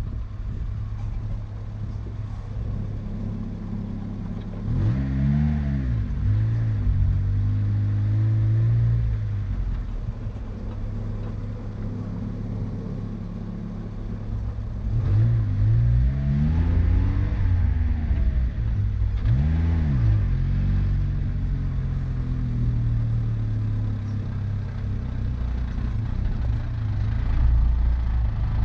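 Car engine running under a steady low rumble, revving up and dropping back several times, about five seconds in and again between about fifteen and twenty seconds in, as when driving over rough off-road ground.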